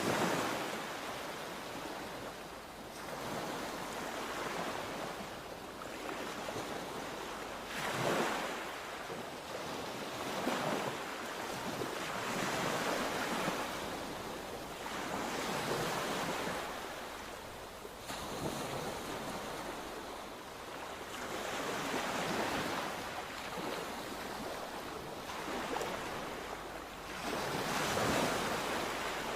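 Sea waves breaking and washing on the shore, the surf swelling and fading every few seconds.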